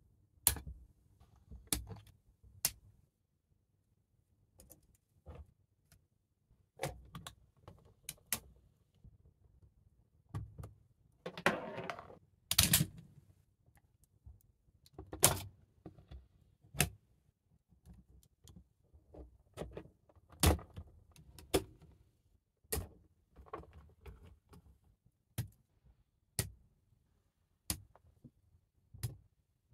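LEGO Technic plastic parts being fitted together by hand: irregular sharp clicks as pins and axles are pressed into beams and gears, with a short stretch of denser plastic rattling near the middle.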